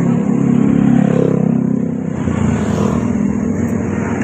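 Motor scooter engine running close by, loudest about a second in and then easing off.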